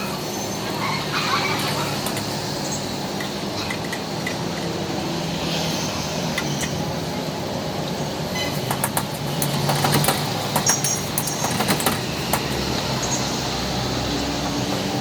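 Roadside street noise with traffic running steadily, and a quick run of sharp clicks and knocks about nine to twelve seconds in.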